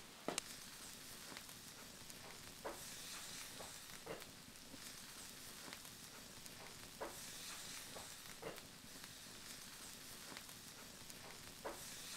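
Faint steady sizzling hiss from food on hot stone slabs heated over an open wood fire, with a sharp crackle or pop every second or two.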